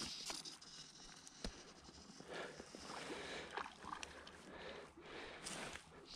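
Faint flowing river water, with soft handling noises from a fly rod and line being cast and a small click about one and a half seconds in.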